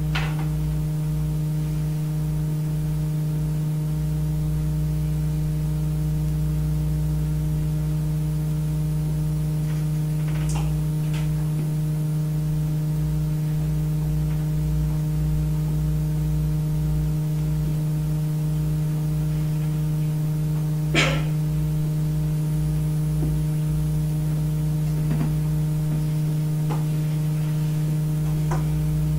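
Steady electrical hum, with a few light clicks or knocks scattered through it; the most distinct comes about twenty seconds in.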